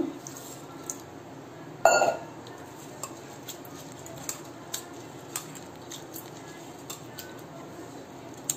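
Steel kitchen vessels being handled: scattered light clinks and taps, with one louder knock about two seconds in.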